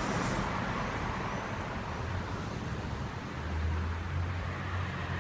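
Traffic noise on a city street, with a garbage truck's engine running. A low engine hum grows louder about three and a half seconds in.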